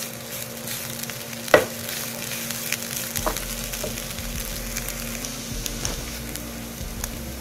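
Wooden spatula stirring and scraping shredded chicken-and-onion filling in a hot non-stick frying pan, over a steady sizzle. There is a sharp click about one and a half seconds in, among smaller scrapes.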